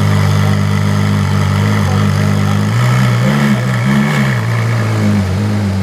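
Ferrari LaFerrari's V12 engine idling steadily, then from about halfway its pitch rises and falls twice in light throttle blips before settling back to idle.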